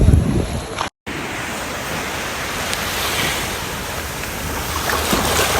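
Steady rush of sea waves washing in, with wind buffeting the microphone during the first second; the sound cuts out for an instant about a second in, then the wave noise resumes.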